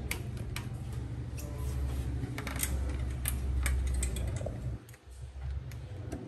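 Scattered light clicks and taps of hands working small plastic clips and trim on a motorcycle's side panel, over a low rumble that drops away near the end.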